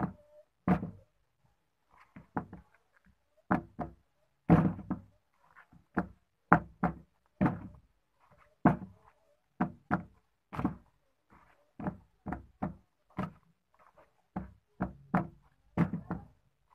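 Sandals being turned over by hand and knocked down onto a hard surface: a string of irregular knocks and thunks, about two a second, some much louder than others.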